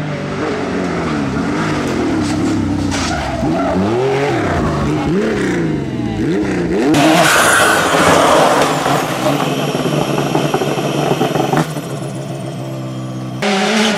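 Rally car engines revving hard, the pitch climbing and dropping sharply again and again through gear changes and lifts. About seven seconds in a loud rush of noise cuts in. Near the end the sound switches abruptly to a steady engine note, then to another revving car.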